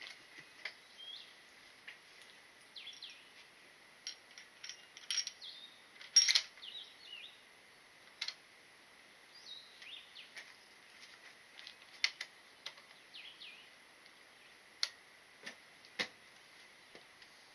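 Birds chirping on and off, with a few sharp clicks and knocks in between; the loudest click comes about six seconds in.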